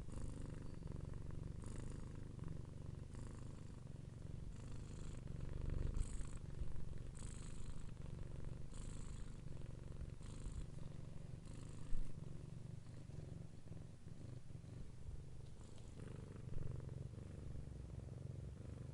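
Domestic cat purring steadily close up: a continuous low rumble, with a soft breathy hiss about every second and a half as it breathes in and out.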